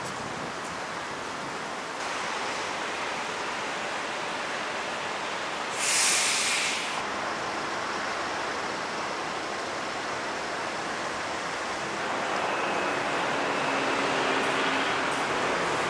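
Steady rushing outdoor ambience by a shallow city stream, with a brief louder hiss about six seconds in.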